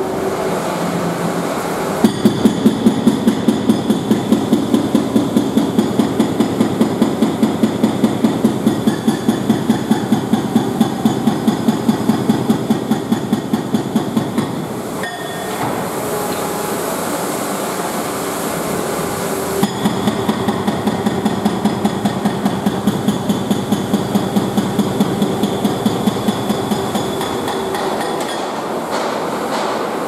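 Hydraulic breaker on an excavator boom hammering a brick wall: rapid, evenly spaced blows in two long runs, with a pause of about five seconds in the middle. A steady din carries on through the pause.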